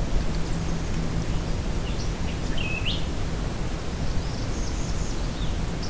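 A bird calls about two and a half seconds in, a short flat note followed by a quick rising sweep, and a fainter high call comes near the end. Underneath is a steady low hum.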